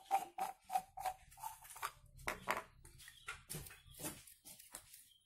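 Hard plastic parts of a 1-inch PVC foot valve clicking and scraping in the hands as it is taken apart, in an irregular run of small clicks with a few louder knocks near the middle.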